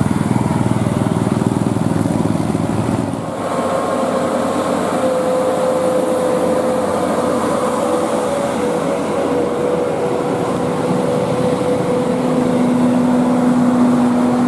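Vehicle engines running in road traffic. The sound changes abruptly about three seconds in, and after that a steady engine drone holds.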